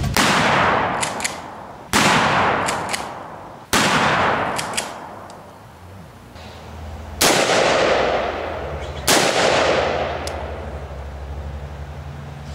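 Five loud gunshots, each trailing off in a long echo: three about two seconds apart, then a pause of three or four seconds and two more, with faint clicks between the first shots and a low steady hum underneath.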